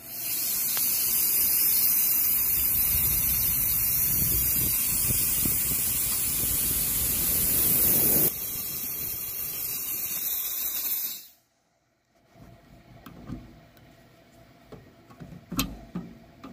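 Aircraft spark plug tester running with a loud, steady hiss that drops a little about eight seconds in and cuts off suddenly a few seconds later. After it stops, a few light knocks and clicks follow.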